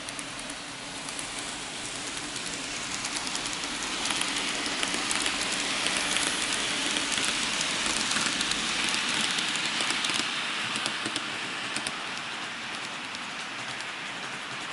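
N gauge model train running along the layout's track, heard from a camera car riding the rails: a steady rolling hiss full of fine rapid wheel clicks. It grows louder about four seconds in and eases off after about ten seconds.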